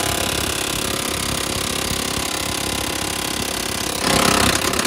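Milwaukee impact wrench hammering steadily on a rusty truck cab-mount bolt to back it out, getting a little louder about four seconds in.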